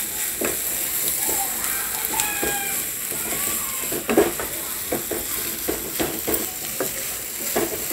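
Minced mutton keema sizzling in a nonstick frying pan as it is fried, while a spatula stirs and scrapes through it in irregular strokes.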